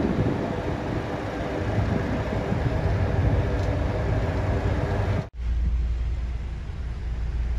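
Boat engine running under way, a low rumble under a rushing noise. The sound cuts out for an instant about five seconds in and comes back as a steadier low engine hum.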